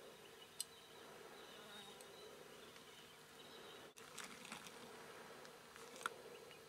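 Faint steady buzzing of flying insects, with two light clicks, one about half a second in and a slightly louder one near the end.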